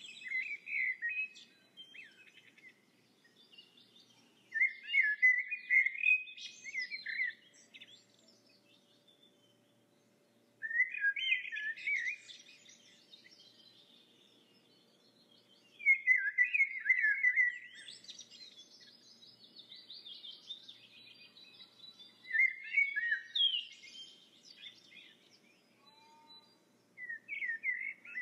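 Bird song: bursts of rapid chirps and warbles, each lasting one to two seconds, coming back about every five or six seconds, with quiet gaps between them.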